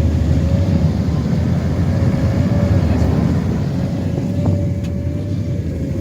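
Twin 60 hp Mercury four-stroke outboard motors running steadily under way, a dense low rumble with a faint wavering whine above it.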